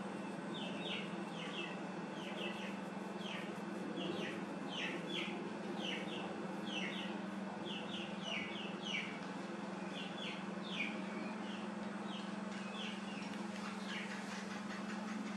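Birds chirping: a run of short, falling peeps, often several a second, that thin out near the end, over a steady low hum.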